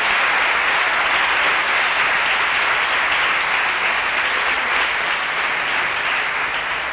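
A large audience applauding steadily, easing off slightly toward the end.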